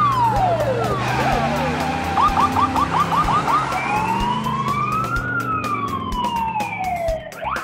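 Police car siren wailing in slow rising and falling sweeps. About two seconds in it switches briefly to a fast yelp of short rising chirps, several a second, then goes back to a long wail.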